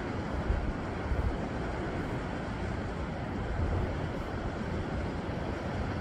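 Small sea waves breaking and washing over shoreline rocks: a steady rush of surf, with a low rumble of wind on the microphone underneath.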